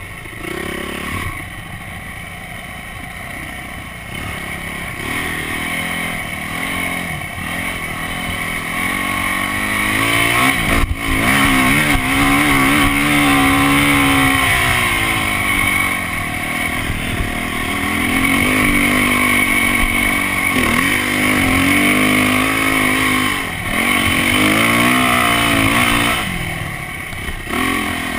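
Yamaha dirt bike engine under throttle while riding through sand, its pitch rising and falling again and again as the rider rolls on and off the gas. It gets louder and higher about ten seconds in, and stays hard-revved after that.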